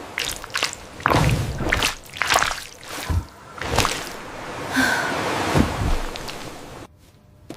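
AI-generated ASMR food sounds: a run of irregular clicks and short noisy bursts, which stops abruptly near the end.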